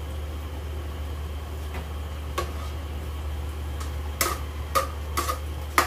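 A spoon clinking and scraping against a metal wok as chicken pieces are stirred: a few faint clicks, then several sharp knocks in the second half, over a steady low hum.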